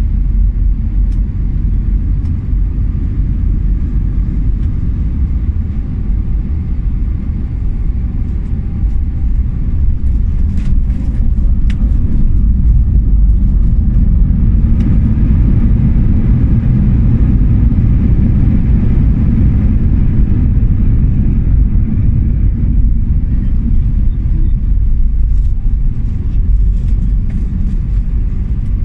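Airbus A319 cabin noise: a loud, steady low rumble of engines and airflow, growing somewhat louder about twelve seconds in.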